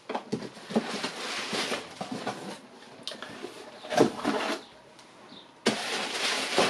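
Parcel packaging rustling and crinkling as it is unpacked by hand, in bursts with a few knocks; the loudest burst comes about four seconds in, and another starts abruptly near the end.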